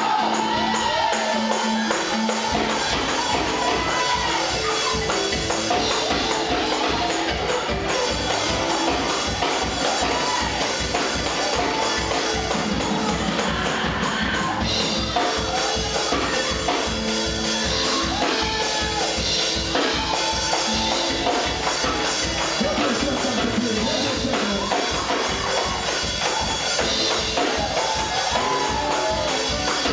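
Church praise-break music: a fast, driving beat with tambourine, and voices over it. The bass beat comes in about two seconds in and runs evenly at roughly three pulses a second.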